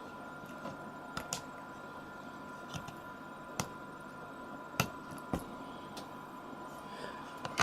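Handling of a battery-powered wireless doorbell that has no power: about seven light, scattered clicks and taps over a faint steady electrical whine, with no chime.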